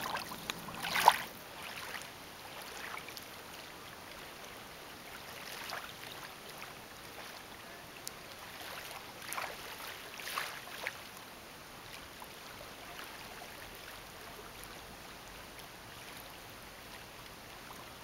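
Small waves lapping on a gravel lake shore, faint and steady, with a few soft splashes near the start and again about halfway through.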